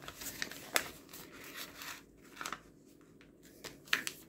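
A sheet of paper being folded and its crease pressed down by hand: scattered crackles and rustles of the paper, quieter in the middle, with a few sharper ones near the end.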